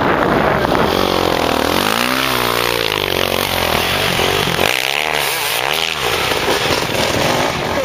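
Dirt bike engine revving hard, its pitch climbing and falling in two bursts, as the rear wheel spins in loose dirt and sprays a roost.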